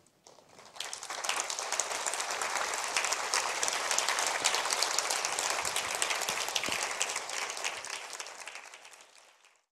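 Audience applauding, starting about a second in and fading away near the end.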